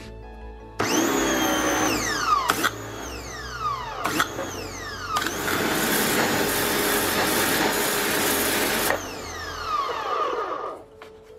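Electric pressure washer's motor starting with a rising whine each time the trigger is squeezed and winding down with a falling whine when it is released, several times over, with the hiss of the water jet; the longest run, in the middle, lasts about four seconds. The stop-start follows the machine's automatic start-stop system, which runs the motor only while the trigger is held.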